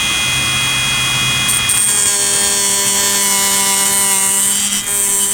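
Handheld power tool running at high speed and cutting a slot in the car's body panel, with a high whine and hiss. Its tone settles about two seconds in, and it stops at the very end.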